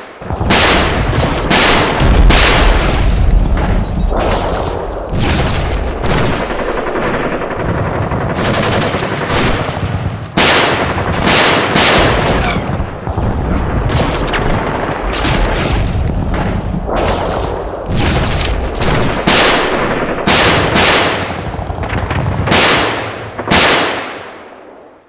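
Gunfire sound effects: rapid bursts of automatic rifle fire mixed with single shots, one after another with hardly a pause, dying away near the end.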